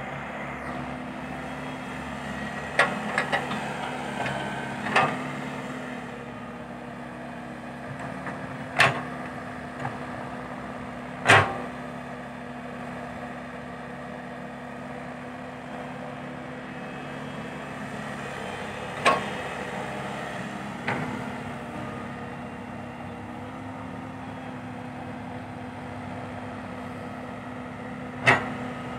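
Komatsu PC120-5 hydraulic excavator's diesel engine running steadily while it digs sand, with about nine sharp knocks from the bucket and arm scattered through, the loudest about 11 seconds in.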